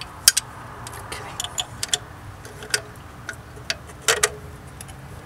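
Irregular sharp metallic clicks and clinks of tools and hardware knocking against metal in a car's engine bay as a bolt is worked into place on the alternator. There is a loud click just after the start and a cluster of clinks about four seconds in.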